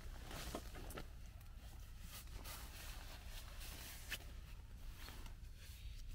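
Faint rustling of clothing and gear with scattered soft clicks and knocks as a person shifts and handles things, over a low steady rumble.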